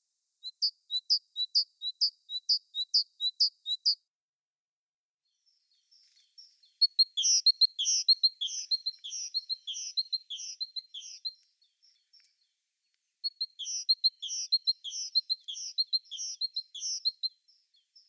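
Songbirds singing: first an even series of about a dozen sharp, high notes, then after a short pause two longer phrases of quick, varied notes.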